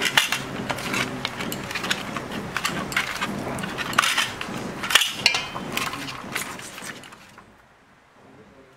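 Hands mixing raw fish heads with turmeric and salt, giving irregular clicks and knocks that stop about seven seconds in.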